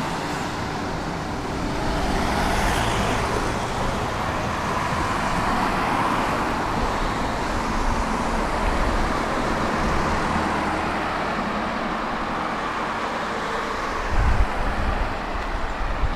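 A tram in motion, a steady running noise with road traffic mixed in, swelling slightly about two seconds in; irregular low buffeting comes in near the end.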